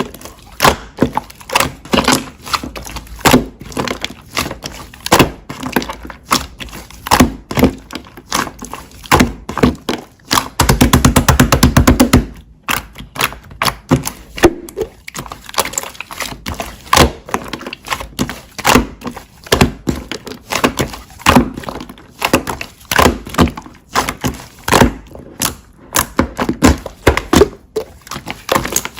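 Slime being pressed, folded and poked by hand, giving a steady run of crackling clicks and pops from bursting air pockets, with a fast, dense stretch of clicking about ten seconds in.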